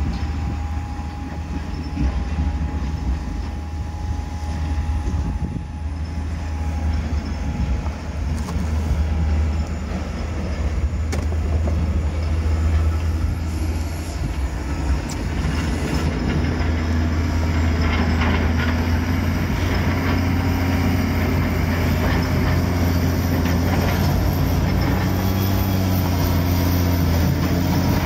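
John Deere 870G motor grader's diesel engine running with a steady low rumble while its plow blades scrape snow and ice off the road. The scraping grows louder and rougher from about halfway through as the grader comes close.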